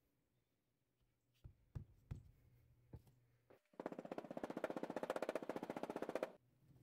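Rubber mallet ramming oil-bonded casting sand down into a wooden moulding flask: a few separate knocks, then a rapid, even run of blows for about two and a half seconds that stops abruptly.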